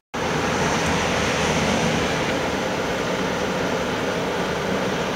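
Electric blower on a small forge running steadily, blowing air hard through the fire with both air orifices open for maximum heat.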